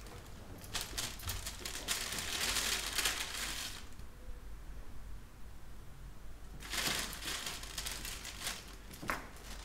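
A brown paper bag crinkling and rustling as it is handled, in two spells: from about a second in until nearly four seconds, then again about seven seconds in, with a single sharper crackle near the end.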